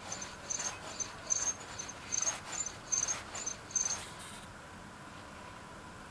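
Sanyo 6V 2.4W hub dynamo turning with short, high-pitched chirping squeaks at irregular intervals, about two a second, which stop about four seconds in. This is its abnormal noise, still there after the bearings were lubricated.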